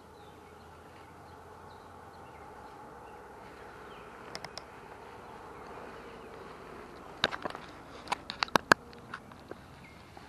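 A faint steady buzz, then a run of sharp clicks and taps about seven seconds in as a spinning rod and reel are handled.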